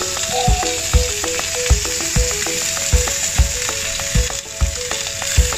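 Honey-beer-glazed chicken drumsticks sizzling steadily over direct heat on a gas grill. Background music with a steady beat plays over it.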